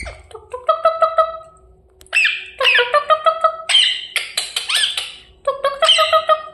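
Indian ringneck parakeet calling in rapid runs of sharp, shrill squawks: a short run, a pause of about half a second, then a long, almost continuous volley, some notes falling in pitch.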